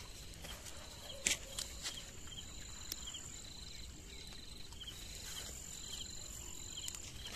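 Night insects chirping: a steady high-pitched trill, with a second insect's short chirps repeating a little faster than once a second. A single sharp click about a second in.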